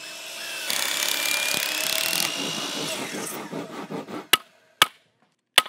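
A power saw cutting through wood, starting under a second in and dying away after about three seconds, followed by three sharp knocks.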